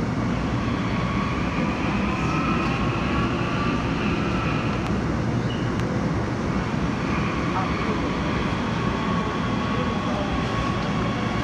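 Seoul Metro Line 9 9000-series electric train running at speed through a tunnel: a steady rumble and rush of wheels on rail, with faint high whining tones that slowly drift in pitch.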